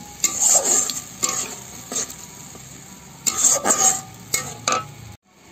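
Metal spatula stirring and scraping fried onions and ginger-garlic paste around an iron karahi over a steady sizzle of hot oil. Bunches of scraping strokes come about half a second in and again a little past three seconds. The sound drops out briefly near the end.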